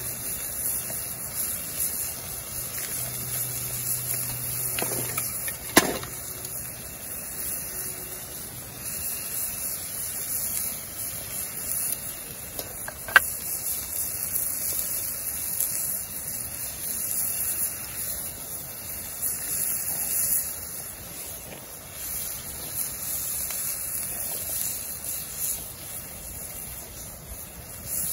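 Meat sizzling in a cast iron skillet over a wood fire: a steady, high sizzle. The burning split wood gives two sharp pops, about six and thirteen seconds in.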